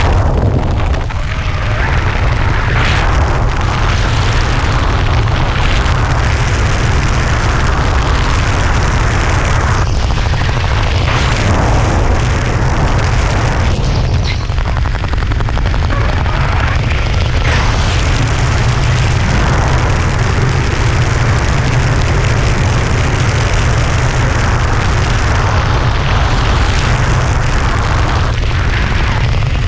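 Wind buffeting an action camera's microphone in parachute canopy flight: a loud, steady rumble with a hiss above it.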